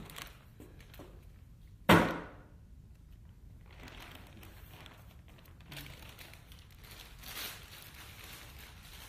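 A single loud bang about two seconds in that rings out briefly, followed by soft rustling and handling noises with a couple of lighter knocks, as in a binaural 3D audio recording.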